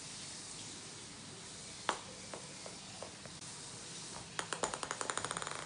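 Ping-pong balls bouncing on a hardwood floor: one sharp bounce about two seconds in and a few lighter ticks after it, then near the end a ball bouncing in a quickening run of ever-shorter bounces as it comes to rest.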